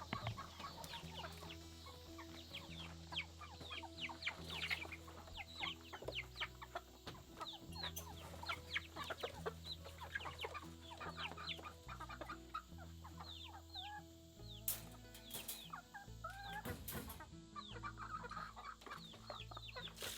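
Young chickens peeping: a dense, continuous stream of short, high cheeps that fall in pitch, many birds overlapping. A few sharp clicks come about three-quarters of the way through.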